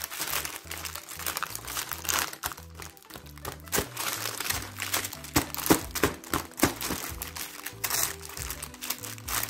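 Baking paper crinkling and crackling as hands press and smooth it flat over nougat in a lined tin, with a string of sharp crackles in the middle. Background music with low repeated notes plays underneath.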